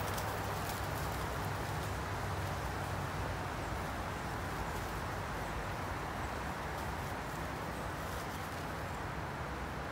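Steady outdoor background noise: an even hiss over a faint low hum, with a few faint rustles of dry fallen leaves.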